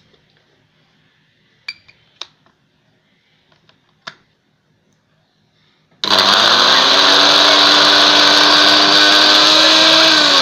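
A few faint clicks, then an electric countertop blender starts abruptly about six seconds in, its motor running loud and steady as it grinds granulated sugar into powder. Just before the end it is switched off and its pitch begins to fall as the motor winds down.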